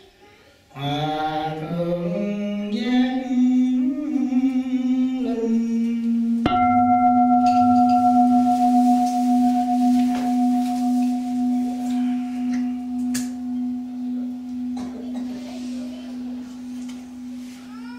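A monk chants a drawn-out phrase that climbs in pitch. About six seconds in, a Buddhist bowl bell is struck once and rings on, fading slowly with a pulsing wobble, the bell that calls the assembly to bow down.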